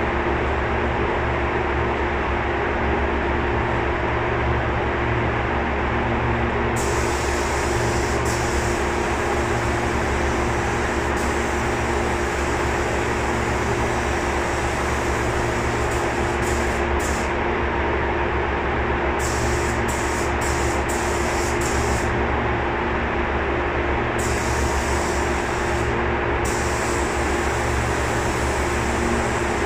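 Air-fed paint spray gun hissing in on-off bursts as the trigger is pulled and released while spraying primer, several short bursts in quick succession near the middle. Underneath runs a steady mechanical drone with a low hum.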